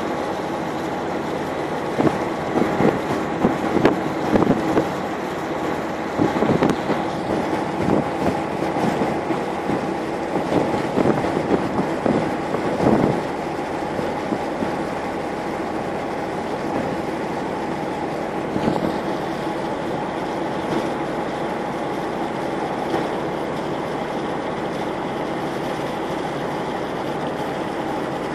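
Small boat's engine running with a steady hum, mixed with water and wind noise. Irregular knocks come through over the first half or so, then the hum carries on evenly.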